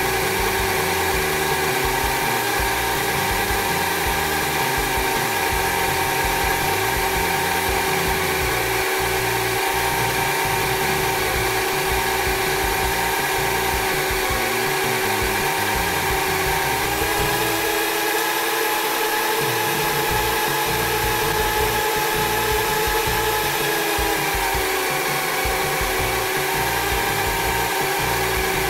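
Cordless drill motor whining steadily as it spins a glass lapping disc, with a hair clipper's lower blade being lapped on the disc in grinding paste. The whine rises slightly in pitch for several seconds past the middle, then drops back.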